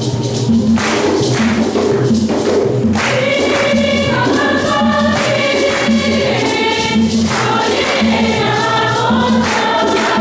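Choir singing a processional hymn over a steady percussion beat; the voices come in strongly about three seconds in.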